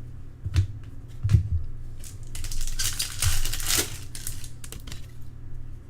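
Trading cards and pack wrappers being handled: a few sharp taps and clicks, then rustling and crinkling for a second or two in the middle.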